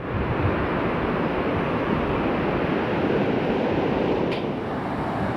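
Waterfall with a loud, steady rush of falling water.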